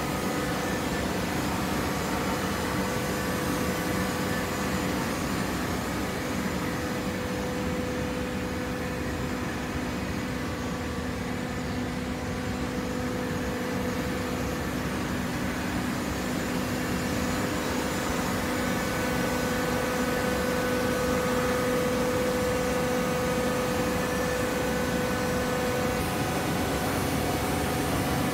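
Horizontal hydraulic baler running: a steady mechanical hum with a steady mid-pitched whine, the whine a little louder in the second half.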